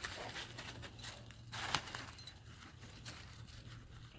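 Footsteps crunching and rustling through dry fallen oak leaves, from a dog's paws and a person walking alongside, with one louder crunch a little under two seconds in.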